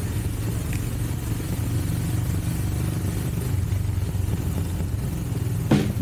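Royal Enfield Himalayan's single-cylinder engine running steadily while the sidecar outfit is ridden along, with a sharp knock near the end.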